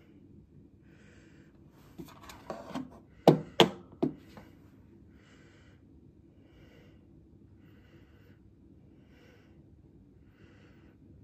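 A few sharp clicks and knocks about two to four seconds in, three of them loud, then soft short rustling sounds repeating about once a second.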